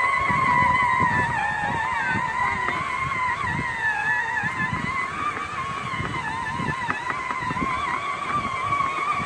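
Electric drive motors and gearboxes of a Power Wheels Ford F-150 ride-on toy truck whining steadily under way, the pitch wavering slightly as the load changes. Under the whine is a low, uneven rumble from the plastic wheels rolling over grass.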